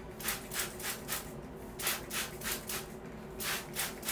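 Detangling brush raked through type 4 natural hair in quick, hissing strokes, about three a second, with a short pause about a second and a half in.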